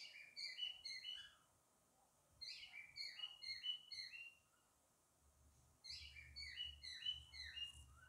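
Male cockatiel whistling three short runs of quick chirpy notes with pauses between them, his call to the hen to come into the nest box.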